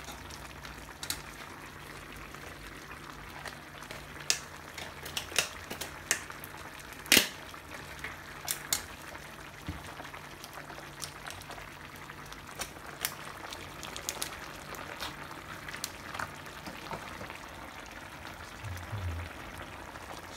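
Thick curry sauce bubbling as it simmers and reduces in a frying pan, with a steady bubbling hiss and irregular sharp pops, the loudest about seven seconds in.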